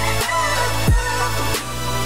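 Electronic background music: a deep kick drum that drops in pitch, about once a second and a quarter, over steady bass notes and a synth melody.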